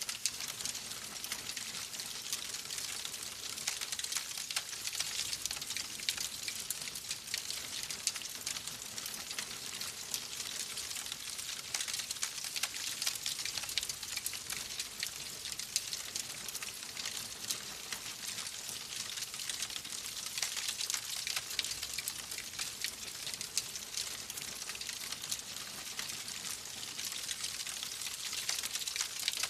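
Wood fire crackling in a fireplace: a steady run of many small pops and snaps over a soft hiss.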